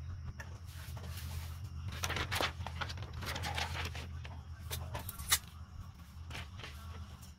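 Rustling of a plastic DTF transfer film and cotton T-shirt fabric as the transfer is laid and smoothed onto the shirt by hand, in irregular strokes, with a sharp click about five seconds in. A steady low hum runs underneath.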